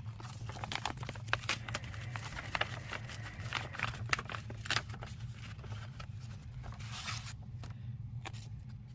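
Paper and sticker sheets crinkling and rustling as they are handled and peeled off an envelope, a run of small crackles that dies down about seven seconds in. A low steady hum sits underneath.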